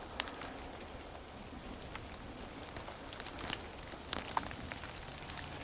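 Light rain pattering and dripping on pine needles and dead leaves: a steady soft hiss with scattered small ticks of falling drops. A brief faint note sounds about three-quarters of the way through.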